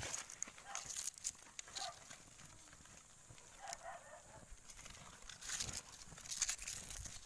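Scattered crinkles and rustles of a piece of corrugated cardboard being handled over a woven bamboo tray, busier near the end as the cardboard is lit. Faint, brief animal calls are heard a few times in the background.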